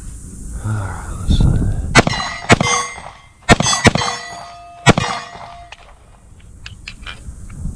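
Four pistol shots in about three seconds, each followed by the ringing clang of a steel target being hit.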